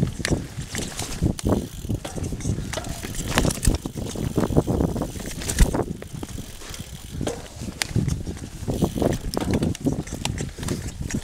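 Mountain bike ridden fast down a dirt trail covered in dry leaves: tyres crunching through the leaves and the bike rattling over bumps, with a steady run of irregular sharp clicks and knocks.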